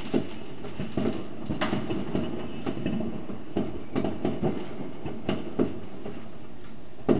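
Distant New Year's Eve fireworks going off all over a town: a steady rumble of many rockets and firecrackers with irregular sharp bangs several times a second.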